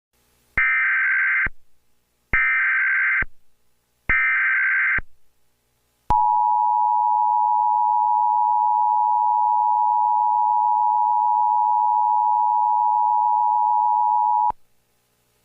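Emergency Alert System header tones: three short bursts of warbling data tones, each about a second long, then the two-tone EAS attention signal held steady for about eight seconds before cutting off suddenly, announcing an emergency alert message.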